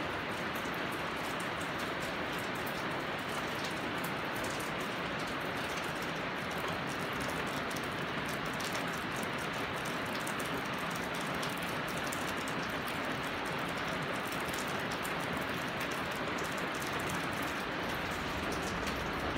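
A steady, even hiss with many faint fine ticks mixed in, unchanging throughout, like rain falling on a roof.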